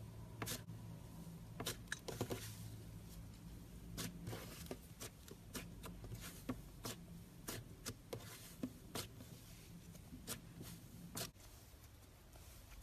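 Slime being squeezed and worked by hand, with irregular sharp clicks and pops.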